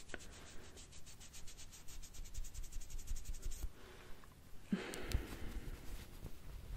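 A makeup remover wipe rubbed over the skin of the wrist to scrub off lipstick swatches: a faint soft scrubbing and rustling, fuller in the last two seconds.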